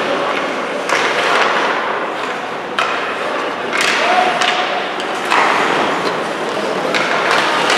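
Ice hockey play: skate blades scraping the ice in repeated bursts, with sharp clacks of sticks and puck and thuds against the boards.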